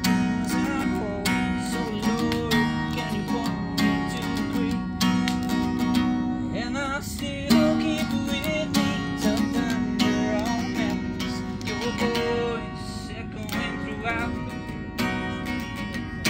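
Background music led by a strummed acoustic guitar, running steadily with a melody over the chords.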